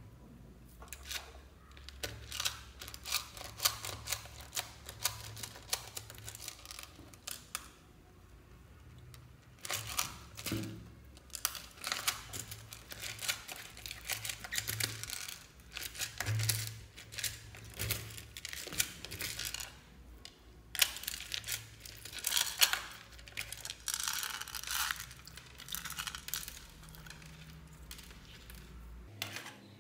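Clear slime mixed with small plastic fuse beads being squeezed and kneaded by hand: dense crackling and clicking from the beads and the sticky slime, in spells with short pauses, over a low steady hum.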